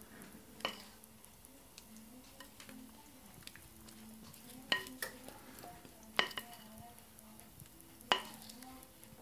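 Silicone spatula scraping brownie batter around a glass mixing bowl, with about five sharp clicks as it knocks against the glass.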